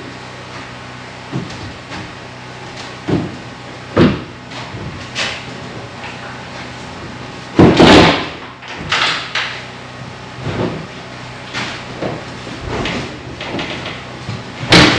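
Old wooden panelled closet doors being opened, pushed and shut: a string of separate wooden knocks and clunks, the loudest about eight seconds in and again near the end.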